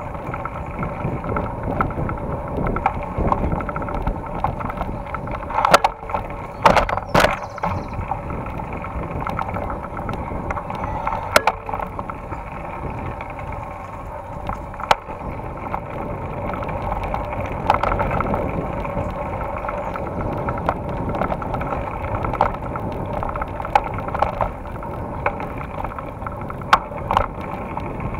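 Mountain bike rolling over a dirt forest trail: a steady rumble of tyres and wind on the microphone, with sharp knocks and rattles as the bike hits bumps, a cluster of them about six to seven seconds in.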